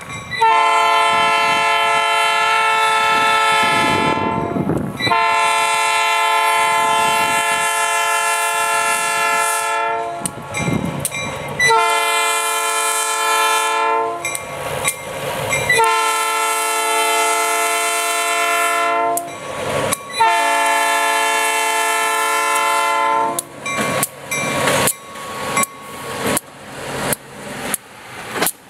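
Diesel switcher locomotive's air horn sounding a series of blasts, long, long, short, long and long again, the pattern of a grade-crossing warning. Near the end the horn stops and the locomotive's wheels click steadily over the rail joints, about two clicks a second, as it passes close by.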